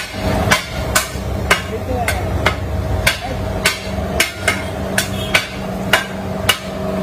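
Two flat steel kottu blades chopping roti on a flat iron griddle: sharp metal-on-metal clanks, about two a second in an uneven rhythm. A large fan hums steadily underneath.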